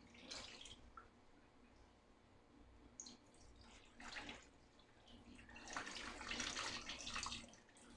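Cloudy rinse water pouring off washed rice from a rice cooker's inner pot into a sink, faint, in three spells: briefly at the start, again about four seconds in, and longest and loudest near the end.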